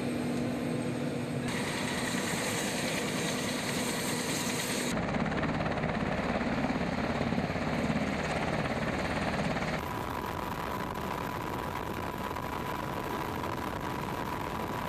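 Helicopter turbine engines and rotor running steadily, the sound changing abruptly at several cuts between shots. It is loudest, with a heavy low rumble, from about five to ten seconds in, while a Black Hawk runs on the ramp. After that comes a steady drone with a constant high tone.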